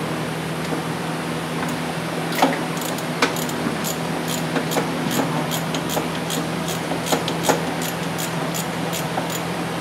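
Ratchet wrench clicking in an even run, about three to four clicks a second starting about two seconds in, as a 13/16 spark plug socket on an extension backs out a spark plug. A steady hum runs underneath.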